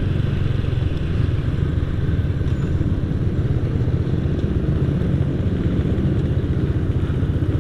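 Honda Astrea Grand's small four-stroke single-cylinder engine running while riding, through a gutted (bedel) Honda Revo muffler, giving a steady deep bass exhaust note with fast low pulses.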